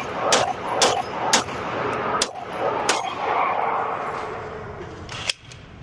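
Pistol shots fired in quick succession, about two a second, for the first three seconds; after a pause of about two seconds, one more shot near the end, followed closely by a fainter crack.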